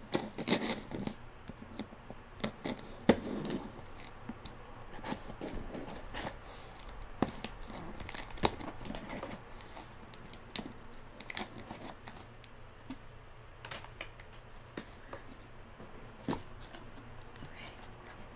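Packaging being torn and opened by hand: irregular tearing, rustling and crinkling with many sharp clicks and snaps.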